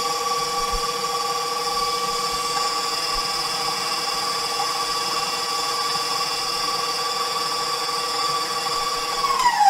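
Electric stand mixer running steadily with a whine as it beats a cream cheese mixture. Near the end it is switched off and the motor's pitch falls as it winds down.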